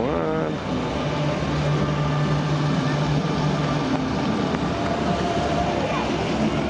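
Busy city-square ambience: a steady din of traffic and people, mixed with amplified live-concert sound from a big outdoor screen.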